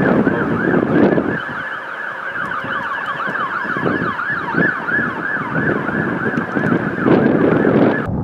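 Emergency vehicle siren in a fast up-and-down yelp, several sweeps a second, cutting off suddenly near the end, with low rumbles at the start and just before it stops.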